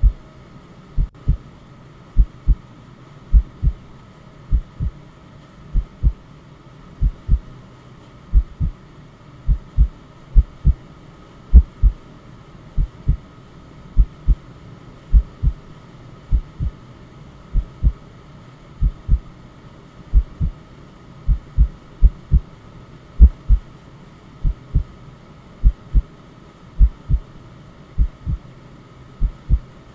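Heartbeat sound: a steady lub-dub double thump, a little under one beat a second, over a faint steady hiss.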